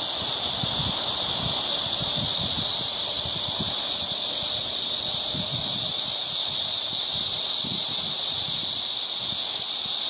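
Cicada song: a loud, steady, high buzzing drone that runs on without a break.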